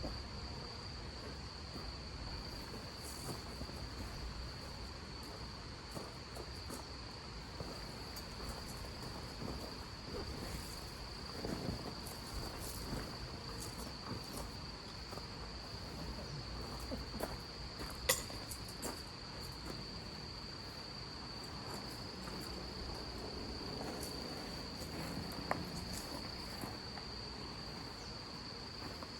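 Crickets trilling, one steady high-pitched insect chorus that never breaks, with scattered light ticks and one sharper tick about eighteen seconds in, over a low rumble.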